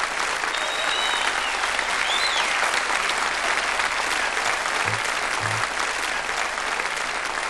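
Concert audience applauding steadily, with a couple of brief high whistles about one and two seconds in.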